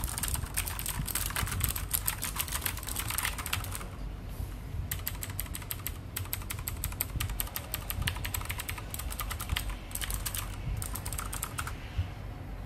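Typing on a Lenovo MK300 mechanical keyboard with clicky Kailh Blue switches: rapid, dense keystroke clicks, with a short pause about four seconds in before the typing resumes.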